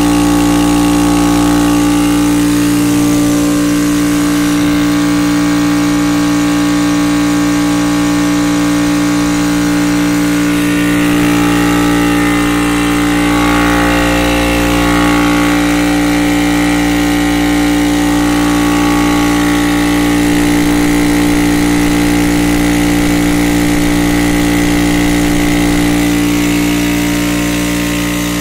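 Craftsman air compressor running steadily, its electric motor and pump giving a loud, even hum with a strong steady tone.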